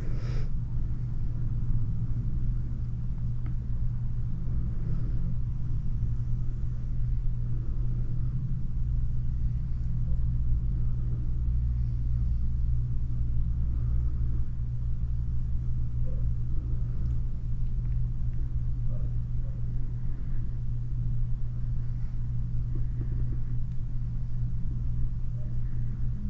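Steady low machine hum running without change.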